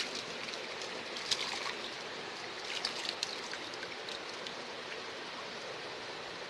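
Steady rush of river water around a person wading chest-deep, with a few small splashes about a second in and again around three seconds in.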